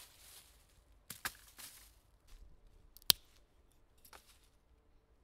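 Scattered rustling and light cracking in forest undergrowth, with one sharp, loud snap about three seconds in.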